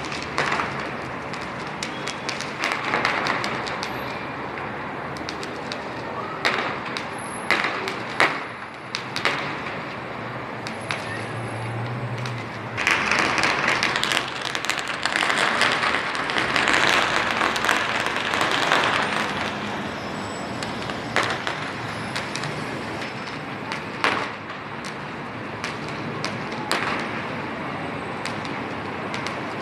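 Fireworks display going off: sharp bangs at irregular intervals over a steady background noise, with a louder, denser run of bangs and crackling in the middle.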